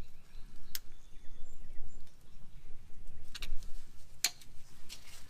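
A handful of sharp, irregularly spaced metallic clicks from a wrench working a rusted transmission cooler line fitting as it turns loose, over a low steady background rumble.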